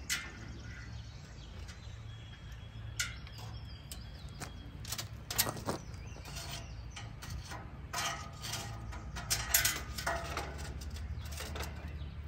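Tape measure handled against a steel truck frame: scattered clicks, rattles and light metallic knocks over a steady low hum.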